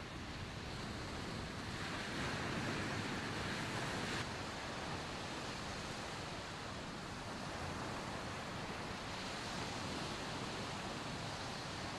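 Surf breaking and washing up a sandy beach, a steady rushing noise with some wind. It is a little louder from about two seconds in and drops suddenly about four seconds in.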